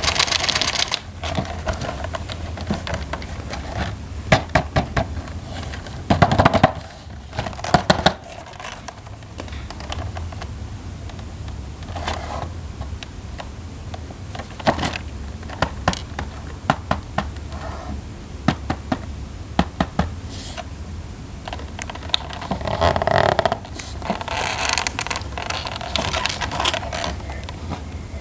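Plastic toy train parts and packaging being handled and fitted together: irregular clicks, taps and scrapes, with a few louder clatters about four to eight seconds in and a longer rustling stretch a little over twenty seconds in.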